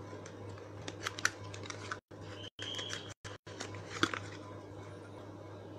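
Hands handling a small plastic cosmetic cream jar and its wrapping: a few faint clicks and rustles over a steady low hum, with the audio dropping out briefly a few times.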